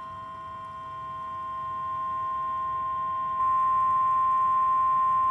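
NOAA Weather Radio warning alarm tone: a single steady high tone near 1050 Hz, heard over a radio stream, that gets louder partway through and cuts off abruptly. It signals that a warning message, here a severe thunderstorm warning, is about to be broadcast.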